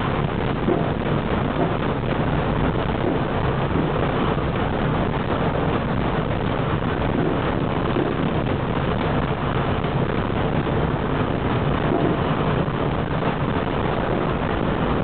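Tram running along street track, heard from inside the car: a steady rumble of wheels on rails and traction motors.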